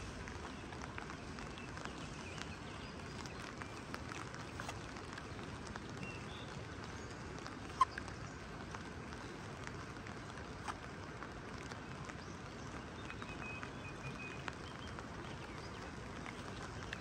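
Steady rain with scattered drips and small taps, and one sharp click about eight seconds in.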